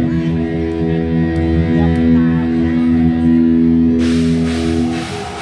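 Live rock band with electric guitar and bass guitar holding long, ringing notes. A hiss of noise spreads across the highs about four seconds in.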